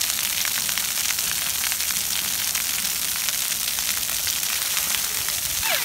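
Splash pad water jets spraying and the spray pattering on wet concrete: a steady hiss full of small splashes.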